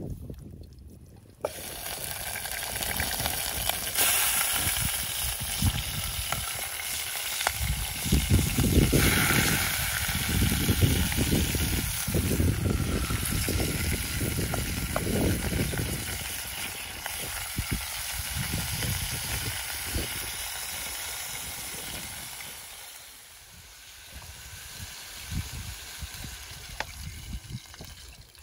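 Sliced meat sizzling as it fries in a small pot over a campfire, a dense hiss that starts suddenly about a second and a half in and dies down near the end.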